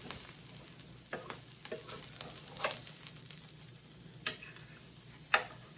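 Birria tacos frying in hot oil in a pan with a steady sizzle. Several short sharp clicks and scrapes of a utensil against the pan punctuate it, the sharpest one near the end.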